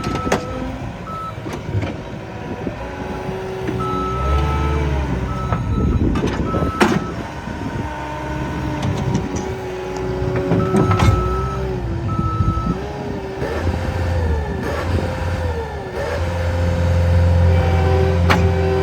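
Cat 246D3 wheeled skid steer's diesel engine working, its pitch rising and falling as the machine is driven and the hydraulics are loaded, with the back-up alarm beeping in short bursts several times while it reverses. A few sharp knocks and clanks sound over the engine.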